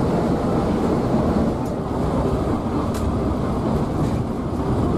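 Steady cabin noise of a Scania K360iB coach cruising on a motorway: a continuous low rumble of engine and tyres with road and wind noise, heard from inside the bus. A couple of faint clicks come through.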